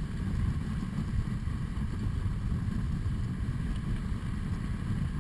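Steady low rumble and hiss of a dog sled running over packed snow at about 11 miles an hour, with wind buffeting the microphone.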